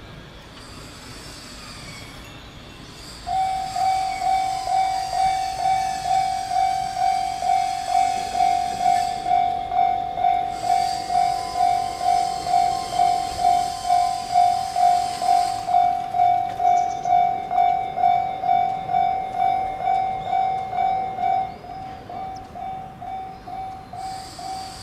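Railway level crossing warning signal starts about three seconds in: a single clanging tone repeating about twice a second. Near the end it drops to a lower volume and keeps ringing at the same pace.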